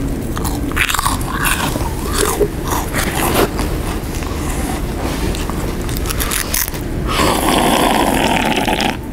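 Loud, exaggerated crunching and chewing of food, with many sharp bites over the first few seconds. About seven seconds in comes a long, loud slurp from a cup that stops abruptly.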